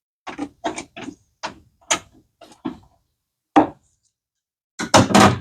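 Irregular clicks and knocks of hand tools and metal parts being handled while a car battery is taken out of the engine bay, roughly two a second, with a louder clatter near the end.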